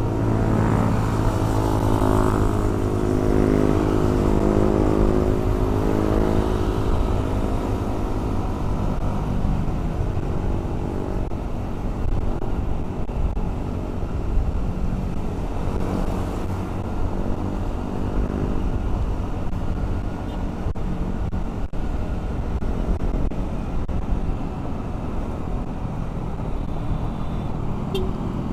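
Motorcycle engine running at riding speed in traffic, with wind rushing over the action camera's microphone and the noise of surrounding vehicles. The engine's steady note is clearest over the first several seconds, after which the wind and road noise dominate.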